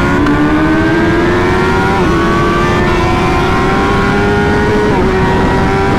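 Honda CBR1000RR SP's inline-four engine accelerating through the gears, its pitch climbing steadily with short upshift dips about two and five seconds in, over heavy wind rush.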